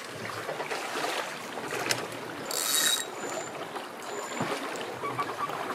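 Flowing river water lapping and running against a small boat's hull, with a brief high hiss about halfway through.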